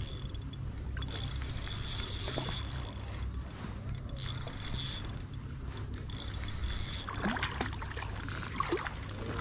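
Spinning reel being cranked to retrieve a lure: a high whirring of the gears in three spells of one to two seconds, with short pauses between them.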